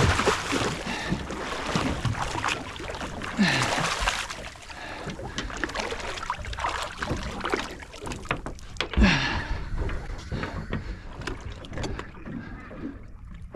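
Water slapping against a small boat's hull, with wind on the microphone and several louder surges. Through it comes the heavy breathing of an angler fighting a Samson fish on rod and reel.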